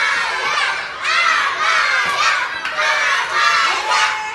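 A group of young children shouting and cheering together, the many voices overlapping in loud swells.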